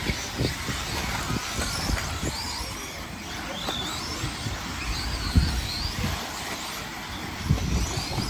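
Electric 1/10-scale off-road RC buggies racing on a dirt track: the high whine of their electric motors rises and falls with the throttle. Several low thumps come through, the loudest about five seconds in.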